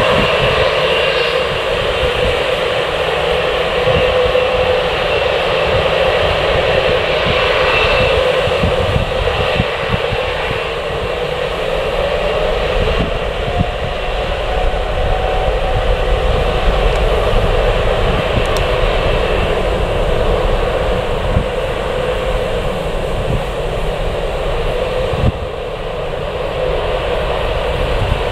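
Jet airliner engines running steadily, with a whine that rises in pitch partway through.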